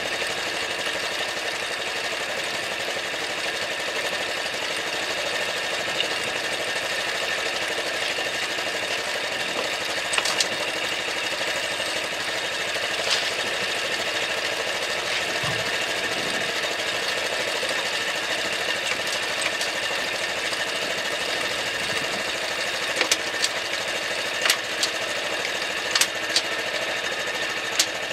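Honda Super Cub's small single-cylinder four-stroke engine idling steadily. A few sharp clicks come near the end.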